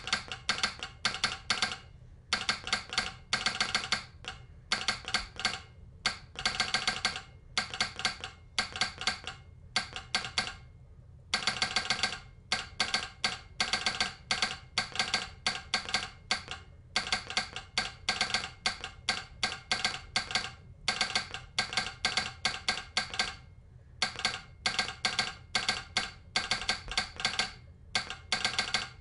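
Telegraph sounder clacking out Morse code: rapid, ringing clicks in short irregular groups separated by brief gaps, with a longer pause about ten seconds in and another near the end.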